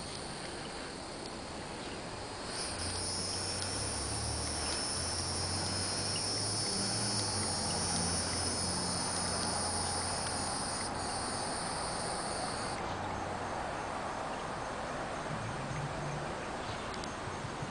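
Hieroglyphic cicada (Neocicada hieroglyphica) calling: a steady high buzz that starts a few seconds in, breaks off briefly, and stops about thirteen seconds in. It sits over a steady high trill of other insects, with a low hum underneath for much of the call.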